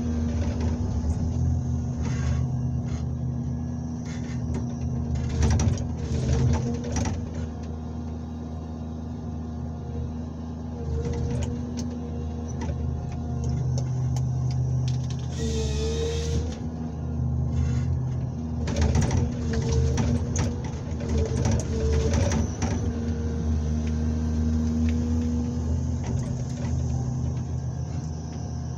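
Komatsu 901XC forestry harvester heard from inside the cab: a steady diesel engine and hydraulic drone while the harvester head feeds and delimbs a birch stem. Repeated knocks and clatters come from the head, and a short harsh burst about halfway through is the head's chain saw bucking the log.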